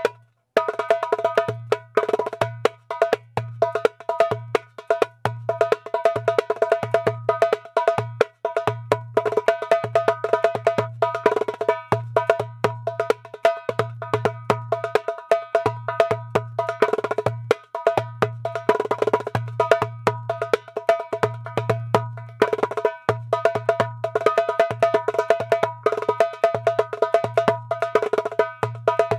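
Aira Percussion darbuka with a new mika (plastic) drumhead played solo in fast, dense patterns. Deep bass doum strokes alternate with sharp, ringing rim strokes. It is a sound test of the new head.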